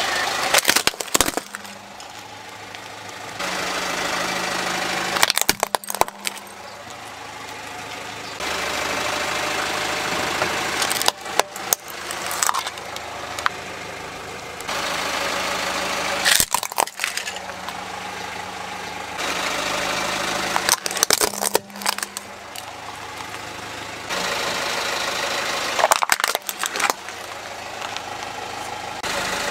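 A car's engine running at idle as its tyre rolls over plastic toys, with about six clusters of sharp cracks and crunches, roughly one every five seconds, as the toys break under the wheel.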